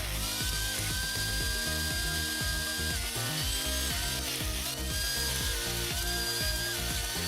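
Background music mixed with the mechanical clatter of heavy land-clearing machinery at work.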